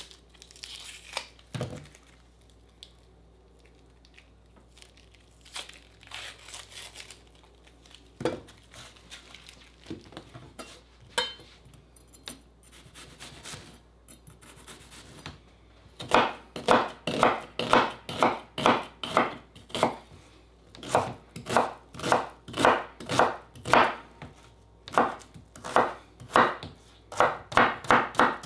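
A knife chopping vegetables. First come scattered handling clicks and rustling. About halfway in, steady chopping strokes begin at about two a second, with a couple of short pauses.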